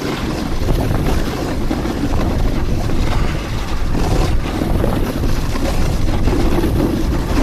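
Steady rushing noise of wind buffeting the microphone and a snowboard sliding fast over hardpack snow and ice.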